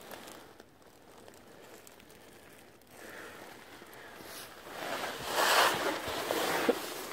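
Footsteps crunching on snow with rustling and wind on the microphone; faint at first, growing louder from about three seconds in.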